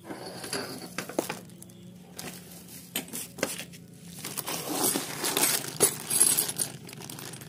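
A plastic bag of small metal hand tools being handled: the plastic crinkles and the metal pieces inside clink, with scattered small knocks and a busier stretch of rustling about two-thirds of the way through.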